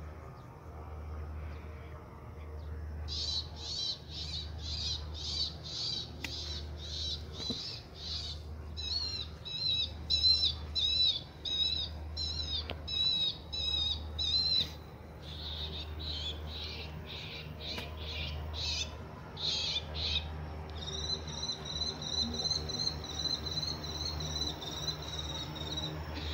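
High-pitched chirping calls from a small animal, repeated about two or three times a second, giving way about three quarters of the way through to a steady, unbroken trill. A low steady hum lies underneath.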